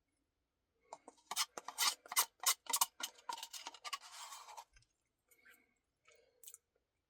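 Close-up eating sounds from an ice cream Blizzard: a run of sharp clicks, crackles and scrapes for about four seconds, starting about a second in, with a few fainter clicks near the end.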